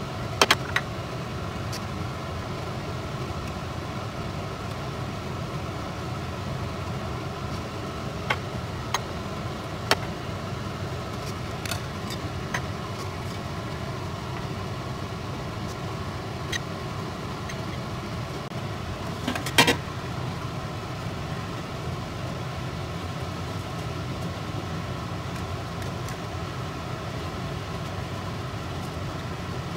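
Steady mechanical hum of a running kitchen appliance, with sharp clinks of utensils against glass food containers scattered through it. The loudest clinks come as a quick cluster about twenty seconds in.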